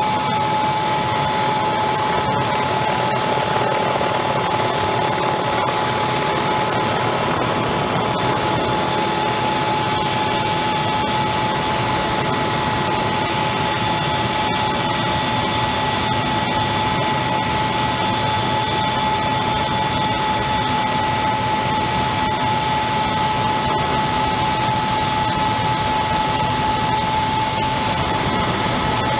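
Mi-35M attack helicopter's turboshaft engines and rotors in flight, heard from on board: a steady loud rushing noise with a high whine held at one pitch throughout.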